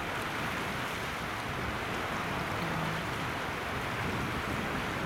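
River water rushing steadily over a low weir and through churning white standing waves, a constant even noise.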